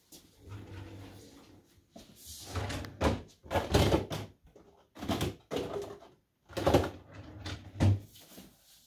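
Plastic wash basins knocking and clattering as they are put away in a bedside cabinet, with the cabinet thudding shut: a run of separate knocks and thuds, the loudest five spread from about three seconds in to near the end.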